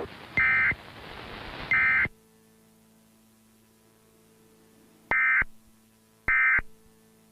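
Emergency Alert System end-of-message data tones: short, shrill buzzing bursts of about a third of a second each, four in all. Two come about a second apart over a hiss, then, after a low steady hum takes over, two more about a second apart. They mark the end of the alert test before normal programming returns.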